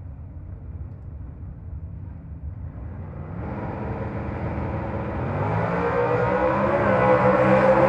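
Drag race car engine growing steadily louder, a low rumble building into a loud, fairly steady engine note as the car comes closer.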